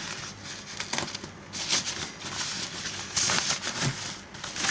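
Plastic wrapping rustling and crinkling in irregular bursts as it is pulled open by hand.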